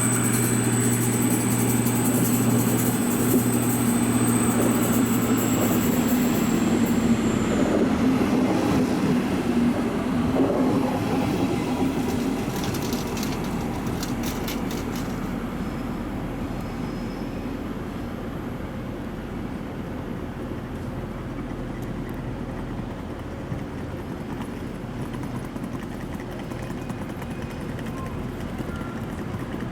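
A diesel train running at the station and gradually moving away, its engine drone slowly fading. A high thin squeal sounds over it and stops about eight seconds in.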